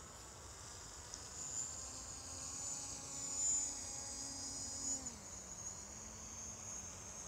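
DJI Mavic Pro quadcopter's propellers buzzing faintly at a distance, with a steady high whine over a lower hum. The hum's pitch drops about five seconds in.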